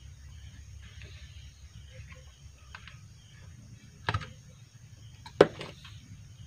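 Two short knocks about a second apart, the second louder, as hands handle the wooden frame and wiring of a homemade fish stunner. A faint low hum runs underneath.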